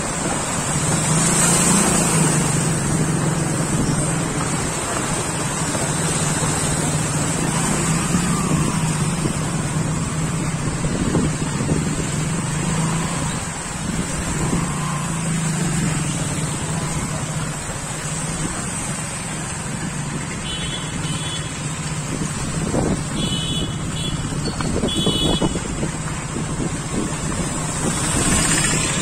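Motorcycle and car engines running as the vehicles ride through shallow floodwater on a street, with a steady engine hum and a wash of noise. A few short high beeps come near the end.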